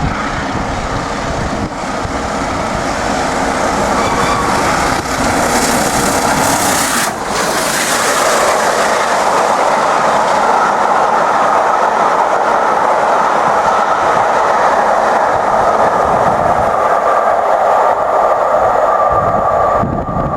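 Steam-hauled passenger train, LNER Peppercorn A1 Pacific 60163 Tornado and its coaches, passing close by. A loud, steady rush of wheels on the rails, with a brief sharper burst about seven seconds in.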